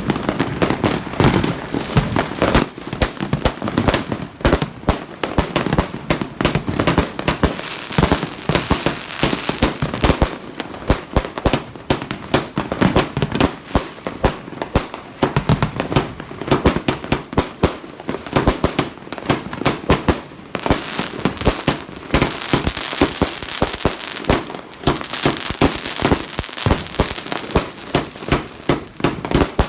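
Mans Best Friend 80-shot firework cake firing, a rapid string of launch thumps and bursting shells with crackle. The crackle gets denser for the last third or so.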